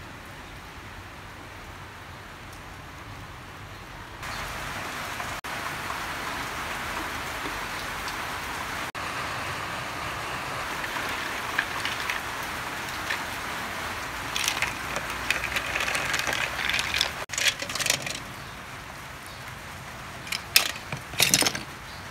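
A pot of water boiling on a charcoal stove, bubbling steadily, while a metal ladle stirs sea snails in it. From about two-thirds of the way in, sharp clinks and clatter of the ladle and shells against the aluminium pot come in bursts, loudest near the end.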